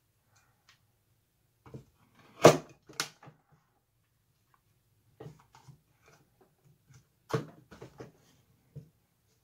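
Scattered knocks and clicks of hand work at a hobby bench, handling small wooden dowel pieces and tools; the loudest, a sharp knock, comes about two and a half seconds in.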